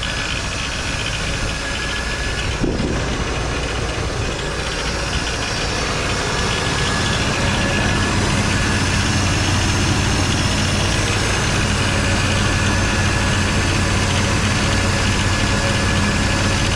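1989 GMC Sierra pickup engine idling steadily, with a noise that the owner puts down to a loose belt pulley. There is a short knock about three seconds in, and the idle hum gets a little louder past the middle.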